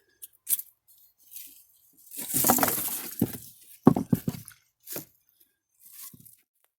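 A series of light clinks and knocks, with a longer rustling stretch about two seconds in and a cluster of sharper knocks around the four-second mark, then nothing after about six seconds.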